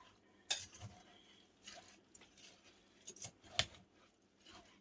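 A spoon stirring and scraping through a thick mix of melted suet, peanut butter, cracked corn and sunflower seeds, giving a few soft, irregular scrapes and clinks; the loudest comes about three and a half seconds in.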